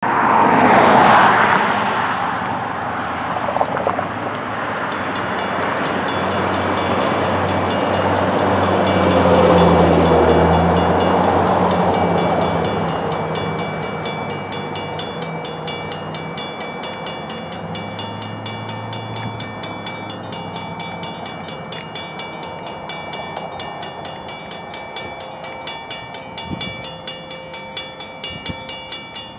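Safetran mechanical crossing bells start ringing about five seconds in and keep up steady rapid strikes as the crossing activates, warning of an approaching train. A vehicle passes loudly on the road at the start.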